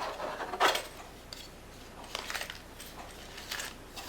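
Rustling and light clatter of packaging and small parts being handled while unboxing, loudest about half a second in, with a couple of softer rustles later.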